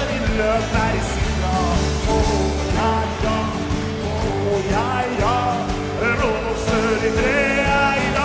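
Live rock song played in a large arena: a man singing over acoustic guitar and a backing band, with steady bass notes underneath.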